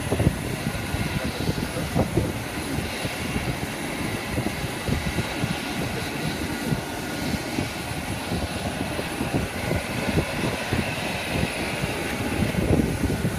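Steady whine of a parked jet airliner, with thin high tones over a rushing noise and an uneven low rumble.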